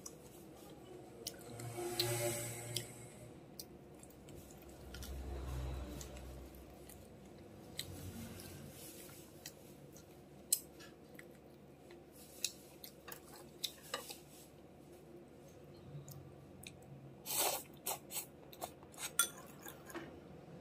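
Close-up chewing and mouth sounds of a person eating boiled duck, with scattered sharp wet clicks and smacks, more of them near the end, and a brief louder hiss about two seconds in.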